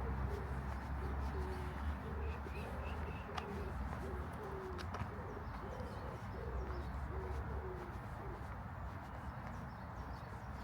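Pigeon cooing: a repeated phrase of low, soft coos that stops about 8 s in, with a few faint higher chirps from another bird early on and a low rumble underneath.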